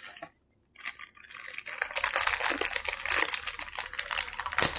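Thin plastic packaging bag crinkling and rustling as it is pulled from a box and handled. It is a dense crackle of many small ticks, starting about a second in and growing louder.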